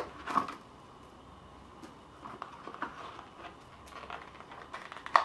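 Handling noise as a revolver is slid into a leather belt holster. A sharp click comes right at the start and another near the end, with knocks just after the first and scattered soft taps and rustles in between.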